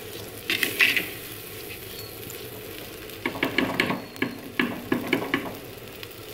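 Steel spoon stirring and scraping soaked basmati rice in a clay pot, in two bouts of quick strokes, the second longer, over a faint steady sizzle from the pot on the heat.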